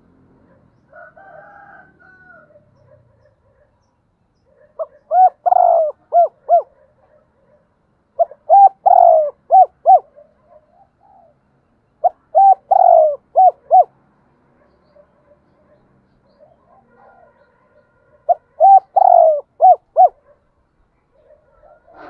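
Spotted dove singing its cooing song: four loud phrases a few seconds apart, each a drawn-out swelling coo followed by two or three short clipped coos.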